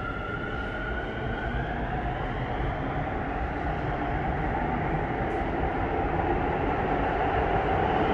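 Electric commuter train pulling out of an underground station: its motor whine rises slowly in pitch as it accelerates, and the running noise grows steadily louder.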